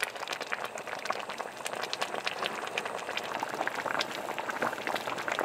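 A pot of skate-liver soup with water dropwort at a rolling boil, its bubbles bursting in a dense, steady crackle.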